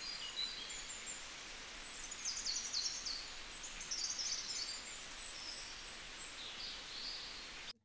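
Faint chirping and trilling of small birds: many short, high, quick calls over a steady background hiss.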